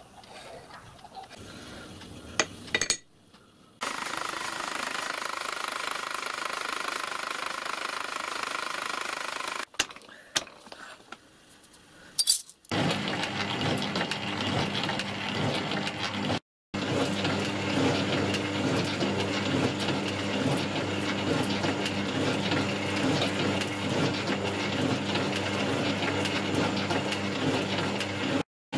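Small bench metal shaper running: a steady motor hum under a continuous mechanical clatter from its ram and drive. This follows a few seconds of light clinks of metal being handled during setup.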